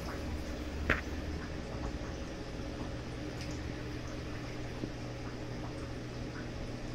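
Steady bubbling and trickling of aquarium water over a low, constant hum from the tank equipment, with a single short click about a second in.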